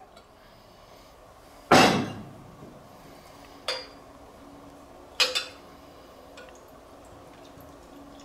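Glass clinks and knocks while dark beer is poured from a glass bottle into a tall wheat-beer glass: one loud knock about two seconds in, then two lighter clinks.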